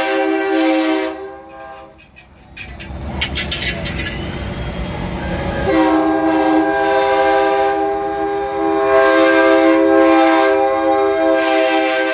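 Semi-truck air horns, train-style, sounding a loud multi-tone chord that cuts off about a second in. A tractor-trailer then rumbles past, and the horn chord sounds again from about six seconds in and holds.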